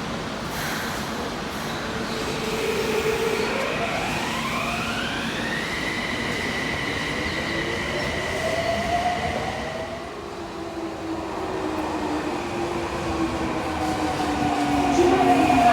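Subway train's electric traction motors whining as it pulls away, the whine rising in pitch for a couple of seconds and then holding a steady high tone, over the rumble of the cars. About two-thirds of the way in, the steady tone stops and lower tones slide slowly down in pitch.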